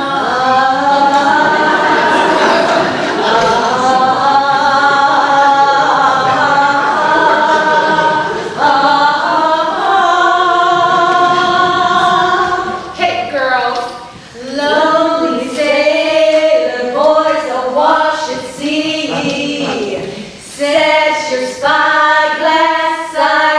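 Three women singing together unaccompanied, in harmony: long held notes at first, then shorter phrases broken by brief pauses.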